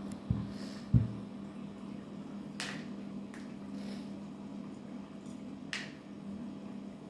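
Pet water fountain's pump humming steadily, with two dull thumps in the first second and a few short crisp clicks later.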